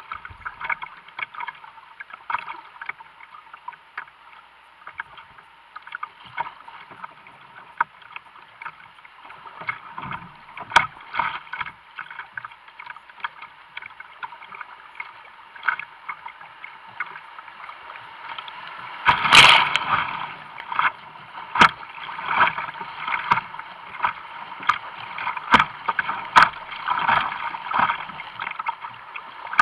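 Kayak running fast, muddy high water on a creek: water rushing and splashing against the hull, with many short sharp splashes and one loud splash about two-thirds of the way through.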